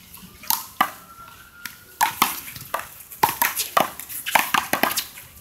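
American handball rally: a string of sharp smacks as gloved hands strike the small rubber ball and it hits the wall and the concrete court. The smacks come thick and fast from about two seconds in.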